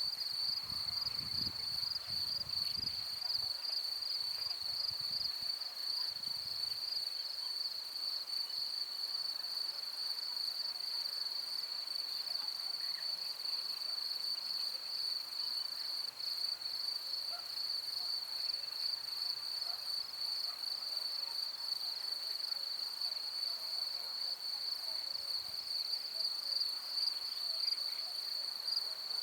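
Field crickets chirping in a steady, high-pitched, unbroken trill, with a faint low rumble in the first several seconds.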